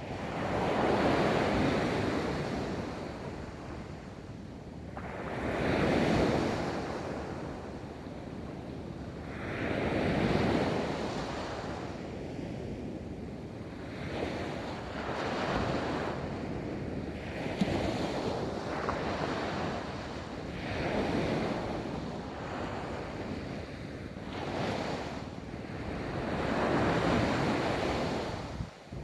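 Ocean waves breaking and washing onto a beach, the surf surging and ebbing about every four to five seconds.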